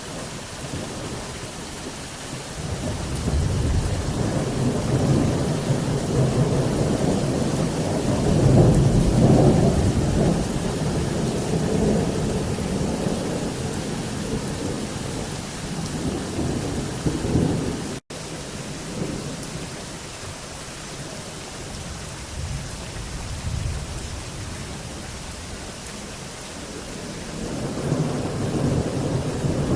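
Rolling thunder over steady heavy rain: a long rumble builds a few seconds in, peaks, and fades away over about a dozen seconds, then another rumble starts to build near the end.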